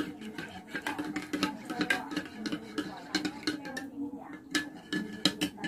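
Metal spoon stirring coffee in a ceramic mug, clinking against the sides in quick, irregular taps.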